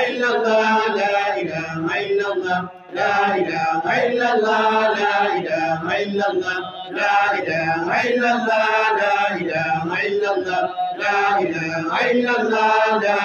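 A man chanting Islamic dhikr in long melodic phrases, with short breaks between them, the clearest about three seconds in.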